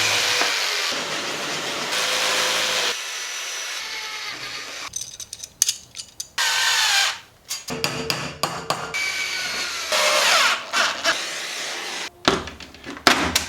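Power tool working aluminium parts in several short runs that start and stop abruptly, some with a rising whine, with clicks and knocks of handled metal between them.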